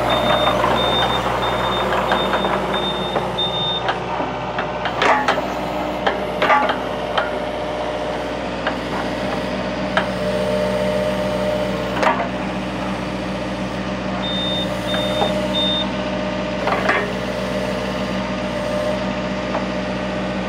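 Yanmar mini excavator's diesel engine idling, with its alarm beeping in quick pulses for the first few seconds and again briefly past the middle. Several sharp metal knocks ring out as the steel pivot pin is driven into the bucket linkage.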